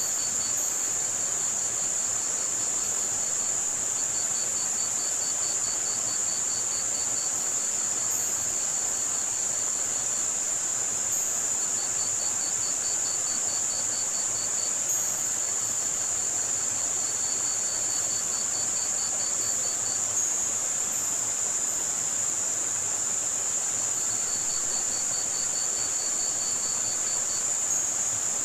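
Layered tinnitus-masking soundscape: a steady high-pitched white-noise hiss with brief very high chirps, and crickets chirping in trains of rapid even pulses that start and stop every few seconds, over a soft wash of running water.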